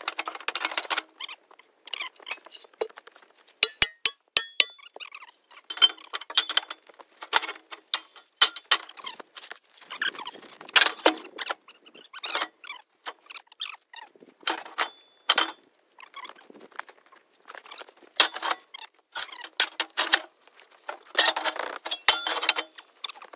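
Cut pieces of thick scrap steel clanking as they are thrown into a trailer: irregular sharp metallic knocks and clatters, in clusters with short gaps between them.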